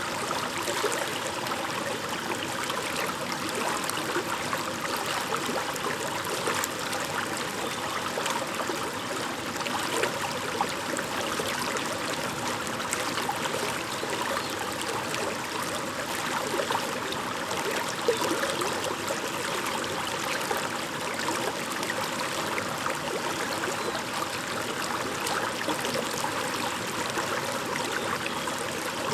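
Shallow stream babbling steadily over rocks: a continuous rush of water with small splashes and gurgles.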